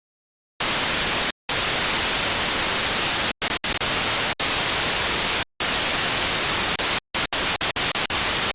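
Loud static hiss, like a radio or TV between stations, starting abruptly just over half a second in and broken by sudden cut-outs, which come short and rapid near the end.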